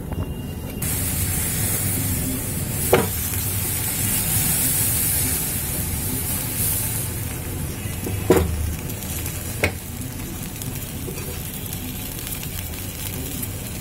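Moong dal batter omelette sizzling in hot mustard oil in a frying pan just after being flipped, the hiss strongest in the first half. Three sharp taps break through about three, eight and ten seconds in.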